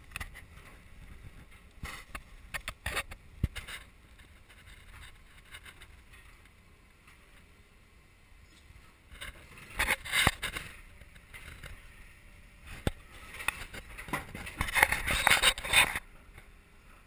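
Handling noise close to the camera: scattered knocks and clicks, with two louder stretches of scraping and rustling, one about ten seconds in and a longer one near the end.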